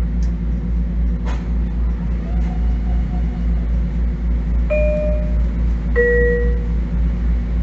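Steady low hum of a stationary Bombardier M7 commuter railcar's onboard equipment. Nearly five seconds in, a two-note chime sounds in the car, a higher note followed a second later by a lower one.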